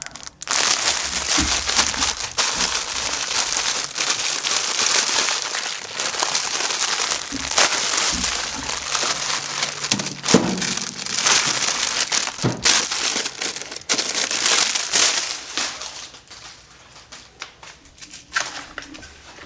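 Plastic packaging and cardboard crinkling and rustling, with scattered sharp clicks and knocks, as a box is unpacked by hand. It dies down a few seconds before the end.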